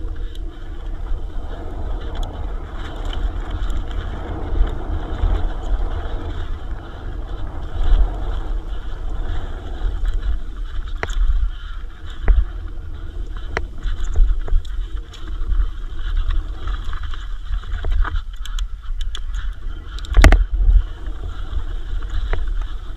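Electric mountain bike ridden over a dirt trail: wind rumbling on the on-board microphone, tyre noise, and sharp rattles and knocks from bumps, the loudest about 20 seconds in.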